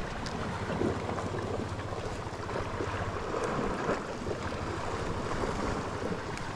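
Sea surf washing steadily against a rocky shore, with wind rumbling on the microphone.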